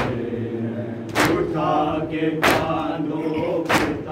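A group of men chanting a Shia noha (mourning lament) together, with sharp, evenly spaced slaps of open hands beating on chests (matam) in time with it, about one every second and a quarter, four strikes in all.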